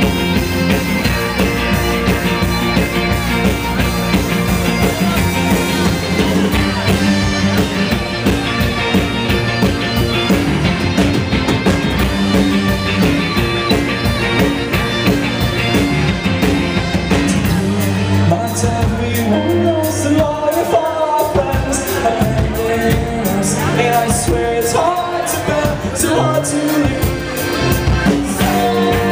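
Live band playing a folk-rock song on accordion, fiddle, upright bass, electric guitar and drums. About two-thirds of the way through, the bottom end thins out and voices come in singing over the accordion and fiddle.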